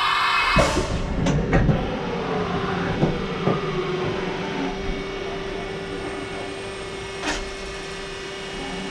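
2012 Haas VF1 CNC vertical machining centre running with a steady whine. About half a second in there is a knock, and the whine falls in pitch over a few seconds as the spindle slows, settling into a steady hum. A few sharp clicks and knocks come along the way and once more near the end.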